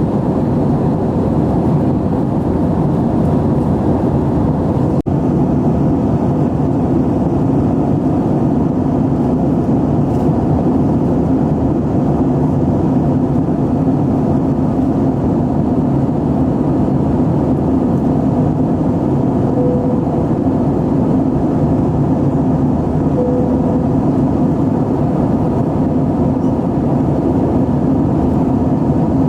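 Steady cabin noise of an Airbus A320-232 in flight, with its IAE V2500 jet engines and the airflow making an even, loud, low rush that does not change.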